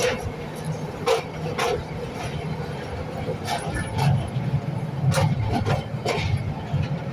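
Kangra Valley narrow-gauge toy train running, a steady low rumble with irregular sharp clacks of the wheels over the rails.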